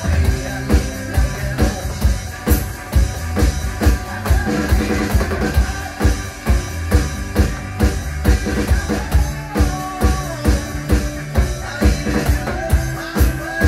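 Drum cover on an electronic drum kit played along with a rock track: a steady driving beat of kick drum, snare and cymbal hits over the song's pitched backing.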